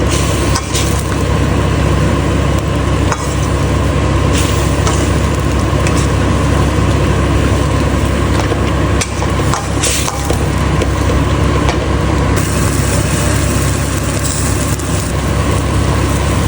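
Steady, loud stovetop cooking noise with a low rumble, broken by a few short light clicks.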